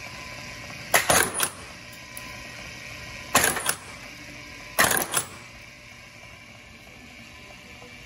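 Deluxe Stitcher S2 wire stitching machine driving heavy-duty 5/8-inch staples through a sandpaper flapper pad: three stitch cycles, each a quick cluster of sharp metallic clacks, about a second in, about three and a half seconds in and near five seconds in, over the steady hum of the running machine.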